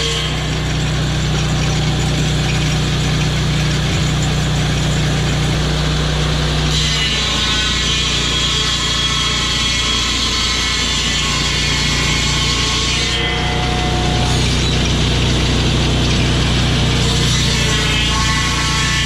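Sawmill engine running steadily while the saw cuts timber, the cutting sound changing about seven seconds in and again around thirteen seconds.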